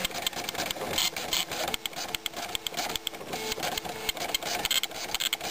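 Citizen GSX-190 9-pin dot matrix printer printing graphics: the print head pins make a rapid, dense buzz as the carriage sweeps back and forth across the page.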